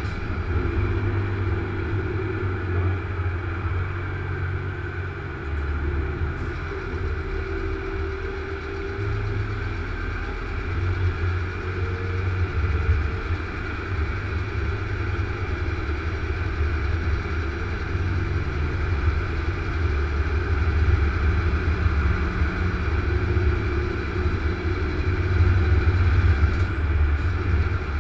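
Truck cab noise while cruising on a motorway: a steady low engine rumble mixed with tyre and road noise.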